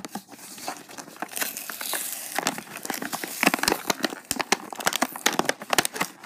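Clear plastic blister packaging being crinkled and pried open by hand, a dense run of crackles and snaps that grows louder and sharper about halfway through.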